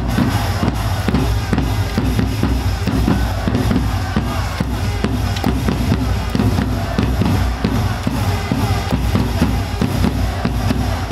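Upbeat dance music driven by a steady drum-kit beat with a heavy bass drum.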